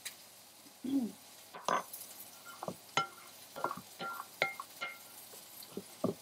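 Metal spoon stirring homemade aioli in a ceramic bowl, knocking against the side in a string of sharp clinks, each with a short ring. A short low sound comes about a second in.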